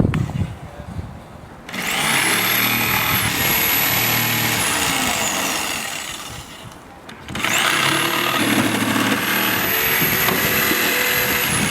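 Cordless power saw cutting through plywood in two runs: each time the motor spins up to a high whine, holds while it cuts, then winds down.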